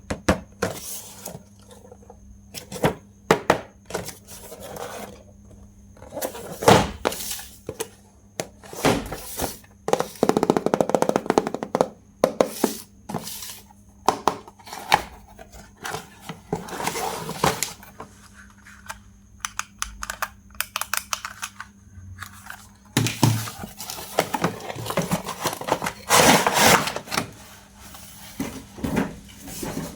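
Hands handling plastic toys and their packaging: irregular clicks, knocks and thunks, with several stretches of rustling and scraping.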